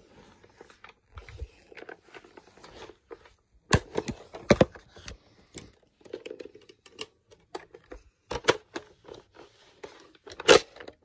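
Handling noise from a toy foam-dart blaster being handled and loaded close to the microphone: rustling with several sharp plastic clicks and knocks.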